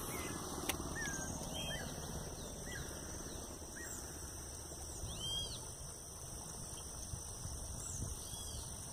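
Pondside ambience: scattered short, curving bird chirps over a steady, high insect drone, with a low rumble underneath and a single sharp click about a second in.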